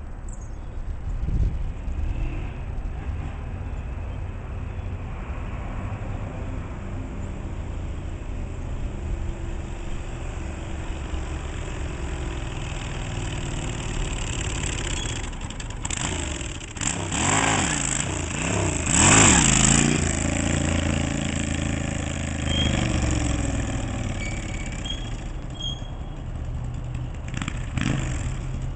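A rephased Yamaha XS650 parallel-twin motorcycle, its crank reset from 360° to about 270°, being ridden up the street. Its engine revs up and eases off between shifts, growing louder as it nears, is loudest as it passes close about two-thirds of the way in, then drops away.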